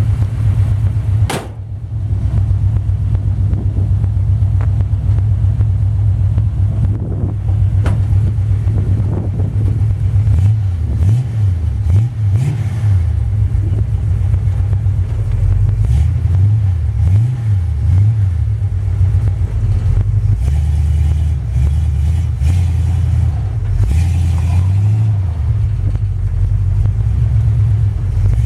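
1980 Dodge D150 pickup's engine running with a loud, deep rumble, its revs rising and falling repeatedly after about ten seconds. There is a single sharp click early on.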